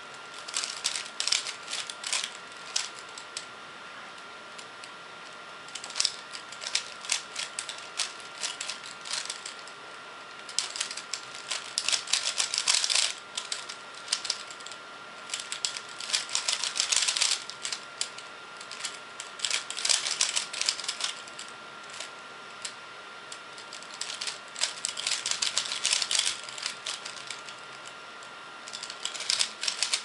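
A 3x3 Rubik's cube being turned quickly by hand: bursts of rapid plastic clicking and clacking, each a few seconds long, separated by short pauses. A faint steady high hum runs underneath.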